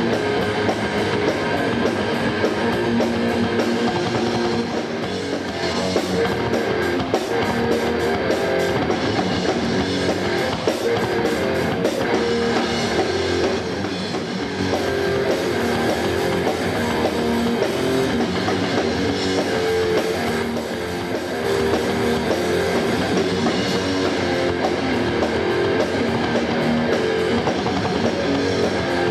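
Hard rock band playing live: electric guitars over bass and a drum kit.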